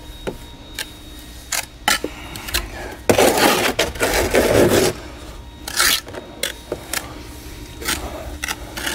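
Mason's trowel working mortar: scattered clicks and taps, and a rough scrape of about two seconds near the middle as mortar is spread.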